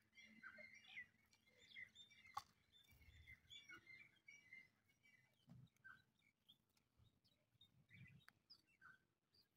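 Faint bird chirping, many short high chirps scattered through, with one sharp click about two and a half seconds in.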